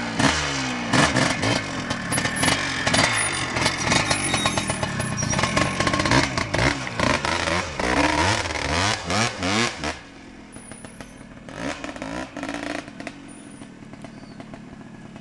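Off-road trail motorcycle engines revving up and down hard over rough ground, with some clatter. About ten seconds in the revving drops to quieter, steadier running.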